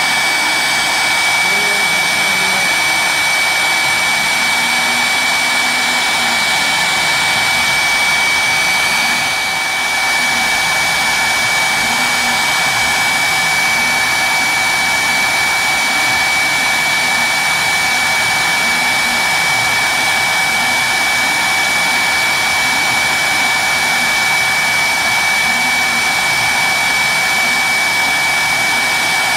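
Mini CNC machine's spindle running steadily at high speed, a loud high-pitched whine, as a 0.5 mm two-flute end mill engraves copper sheet. The level dips briefly about nine seconds in.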